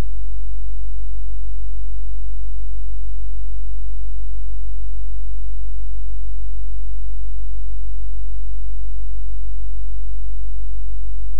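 Loud, steady low electrical hum with a few weaker overtones, unchanging throughout; no other sound is heard over it.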